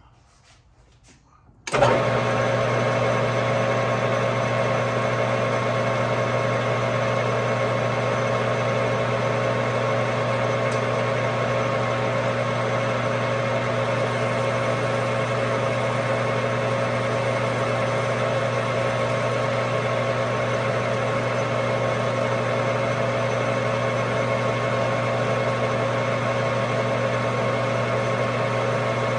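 Metal lathe switched on about two seconds in and then running at a steady speed, a constant motor hum with a whine over it, as the bushing is turned down to take another few thousandths off so it fits.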